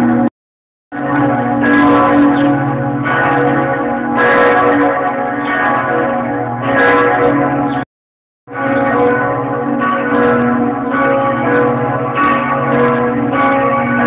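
Several church bells of the Lengerich town church tower ringing together in a continuous peal, strikes overlapping in a dense, layered ring. The sound cuts out completely twice for about half a second, once near the start and once about eight seconds in.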